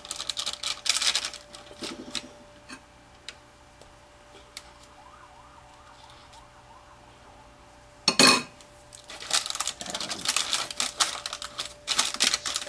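Spatula scraping and spreading thick brownie batter in a parchment-lined glass baking dish, in bursts at the start and again near the end, with a quieter stretch between. One sharp clatter about eight seconds in, under a faint steady hum.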